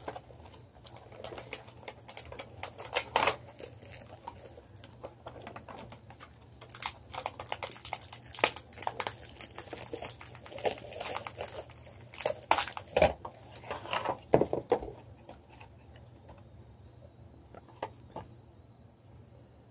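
Cardboard-and-plastic toy box packaging being handled and pulled open by hand: irregular crinkling and rustling with sharp snaps, busiest between about twelve and fifteen seconds in, then only a few faint clicks.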